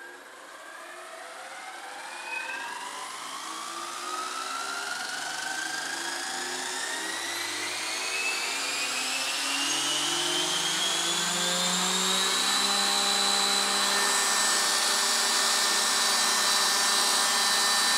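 Electric drivetrain and fenestron tail fan of a Roban EC130 800-size RC helicopter spooling up slowly with its main blades off. The whine rises steadily in pitch and grows louder throughout, several tones climbing together. This is the first spool-up test after the mechanics were fitted into the scale fuselage.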